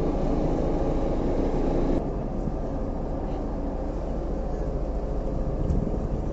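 A fishing boat's engine running with a steady low drone. The sound drops a little in level about two seconds in.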